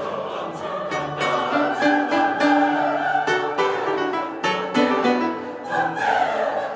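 Large mixed choir singing with piano accompaniment: sustained sung notes over struck piano chords.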